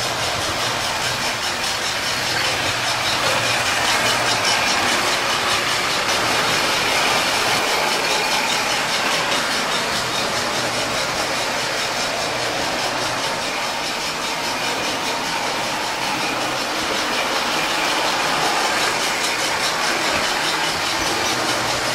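Lionel MPC-era O-gauge toy freight train running on three-rail tubular steel track: a steady whirring rumble of the motor and metal wheels on the rails, with a faint low hum underneath.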